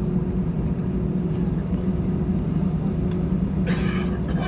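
Jet airliner cabin drone from inside the aircraft: a steady low rumble of the engines and airframe with a faint steady hum, and a brief higher sound near the end.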